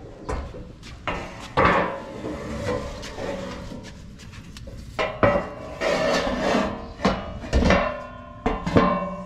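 Irregular metallic clanks and knocks on a steel motorcycle carrier rack as a tie-down strap's hook and hands bang against it; several knocks ring briefly, with rubbing and scraping between them.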